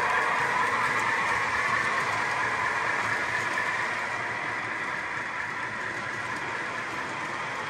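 O-gauge model freight train running along the layout's track: a steady rumble of many cars' wheels rolling on the rails, slowly getting quieter as the train moves off.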